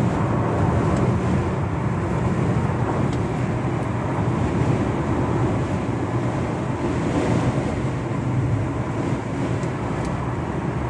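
A car driving in strong wind: a steady low rumble of road and wind noise.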